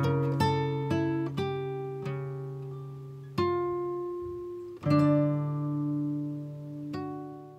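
Background music of acoustic guitar: plucked notes and strummed chords that ring out and fade, with a few fresh chords struck through the middle and the last one dying away near the end.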